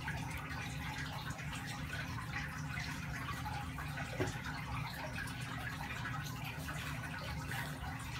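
Steady low room hum and hiss, with faint rustling of a cotton onesie being pulled onto a vinyl doll.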